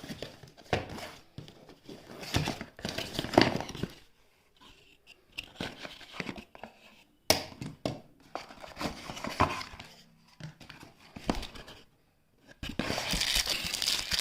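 Plastic packaging crinkling and rustling as it is handled, with irregular clicks and knocks; near the end the crinkling becomes steady and continuous.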